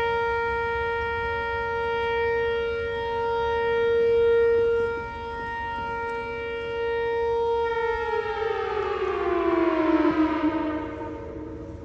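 Whelen WPS-4004 electronic outdoor warning siren sounding a steady tone. About eight seconds in, the pitch falls away in a wind-down as the test signal ends.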